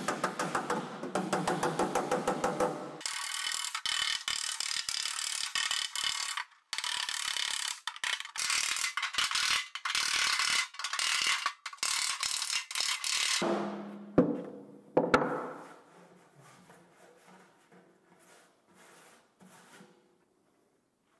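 Rapid hammer taps on an aluminium car body panel, several a second, each with a metallic ring. About three seconds in the sound turns thin while the tapping goes on; it stops after about thirteen seconds, with a couple of knocks before it dies away.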